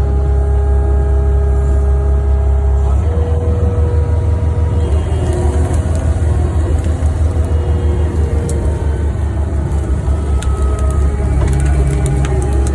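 Skid steer loader's engine running steadily under load, with a whine over it that shifts in pitch about three seconds in and a few light clicks and knocks later on.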